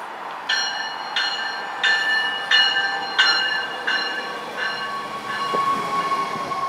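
NJ Transit River Line Stadler diesel light-rail train pulling into the platform, its bell ringing about eight times at a steady pace of roughly one and a half strokes a second. A steady high whine from the train comes in during the second half as it rolls past close by.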